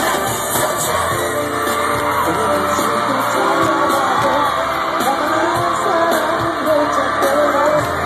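Live pop concert heard from inside the arena audience: the band's amplified music and singing, with the crowd yelling and screaming along.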